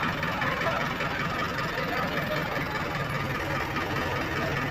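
JCB 3DX backhoe loader's diesel engine running steadily, a constant low rumble.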